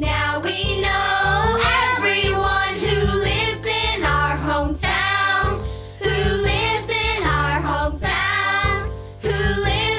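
A group of children singing a song together over instrumental backing music.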